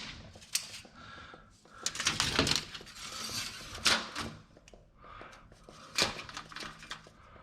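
Light metallic clinks and clicks from small hard objects being handled, four or five sharp ones spread a second or two apart.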